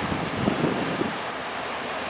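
Strong wind buffeting the microphone over the steady rush of surf, with a few low gusts in the first second.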